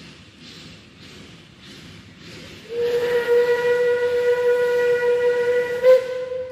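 Narrow-gauge NA class 2-6-2T steam locomotive 12A chuffing softly about twice a second, then about three seconds in sounding a long steam whistle blast: one steady tone that swells briefly near the end. It is the whistle given on approaching a level crossing.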